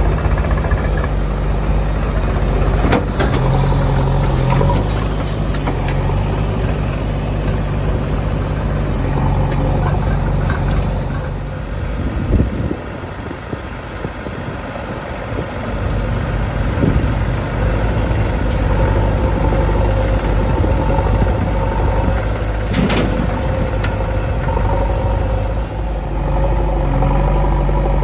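Diesel engines of a JCB 3DX backhoe loader and a farm tractor running steadily close by, with a couple of sharp knocks. The engine noise drops away for a few seconds near the middle, then returns.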